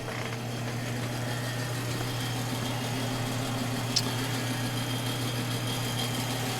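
An engine idling with a steady low hum and a faint high whine, and one sharp click about four seconds in.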